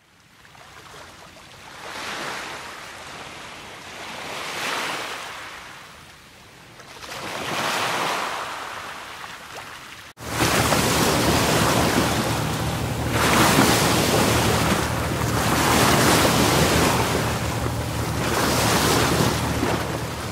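Rough sea surf: waves surging in and breaking, rising and falling every two to three seconds. After a sudden cut about halfway through the surf is louder, with wind buffeting the microphone.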